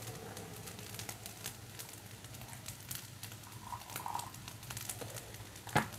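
Hot water poured from an electric kettle into glasses of instant coffee powder, over a faint steady crackle of rice frying in a pan. A sharp knock comes just before the end.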